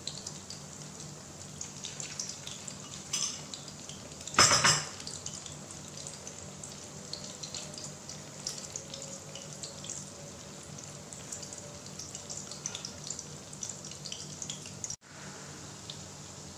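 Breaded luncheon meat slices frying in shallow oil in a pan: a steady crackling sizzle with many small pops. About four and a half seconds in there is one loud half-second burst of noise, and near the end the sound breaks off for an instant before the sizzle carries on.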